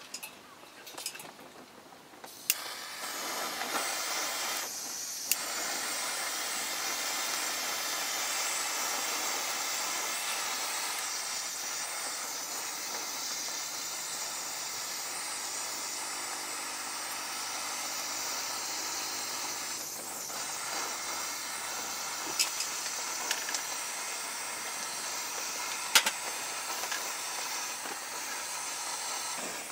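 Steady hiss of a handheld gas torch flame preheating a brass Takei Purple Stove kerosene pressure burner, starting a few seconds in. A few sharp clicks sound near the start and again later.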